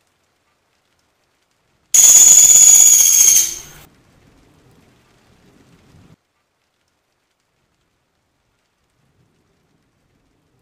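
Pelatuk sampit woodpecker giving one loud, high-pitched call about two seconds in. The call holds a steady pitch for about a second and a half, then cuts off.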